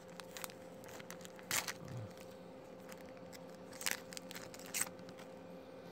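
Foil trading-card pack wrapper being torn open and crinkled by hand, with a few sharp crackles about a second and a half, four and five seconds in.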